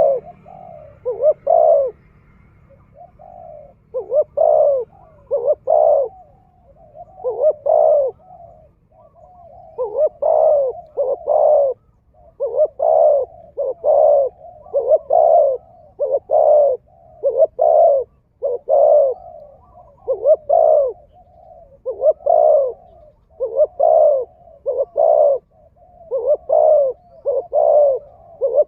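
A bird calling over and over in short, low, hooting notes, mostly in pairs about one to two a second, with a few brief gaps.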